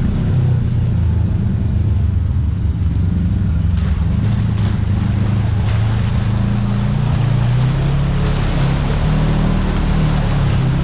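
Side-by-side UTV engine running under varying throttle, its pitch wavering up and down, with a rushing noise that builds from about four seconds in and a few sharp ticks.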